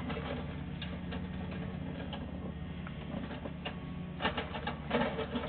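Sewer inspection camera and its push cable being fed through a pipe: irregular clicking and rattling over a steady low hum, with a louder cluster of rattles about four to five seconds in.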